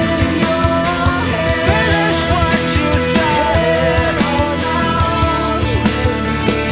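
Live rock band playing an instrumental passage: drums keeping a steady beat under bass and a bending lead guitar line.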